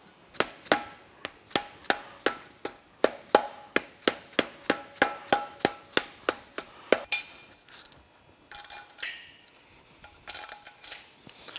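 Sharp metallic clicks on the aluminium engine head, evenly spaced at about three a second, each with a short ring, for six or seven seconds. After that comes a lighter rattle of small metal parts, the head bolts and washers being handled.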